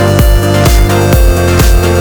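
Electronic dance music with a steady kick-drum beat about two a second over heavy bass and synth chords.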